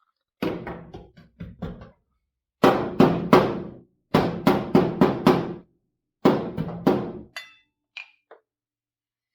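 Body hammer striking a sheet-metal patch panel to bend and shape it, in quick bursts of three to five blows separated by short pauses, each blow ringing briefly. Two lighter taps follow near the end.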